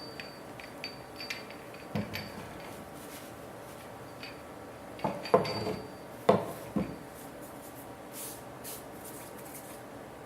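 Small metal parts and tools being handled on a workbench: scattered light clinks and knocks, a few with a brief high metallic ring.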